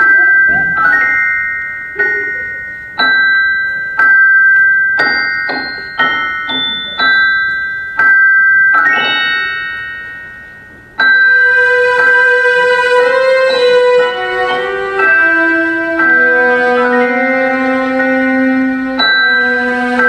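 Music: a chiming melody of single struck notes, each ringing and fading away, about one a second. About eleven seconds in, a fuller tune comes in with lower held notes under the chimes.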